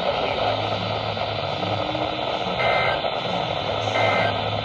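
Weather radio broadcast hissing with static, then two short warbling data bursts of the EAS/SAME end-of-message code, each about a third of a second long and about a second and a half apart. They mark the close of the warning broadcast.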